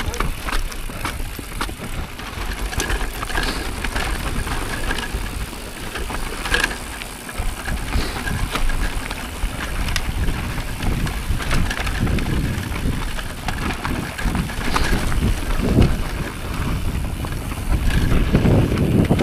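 Mountain bike riding fast down a dirt singletrack: tyres rolling and crunching over dirt, stones and roots, with constant rattles and knocks from the bike over bumps and wind rumbling on the microphone.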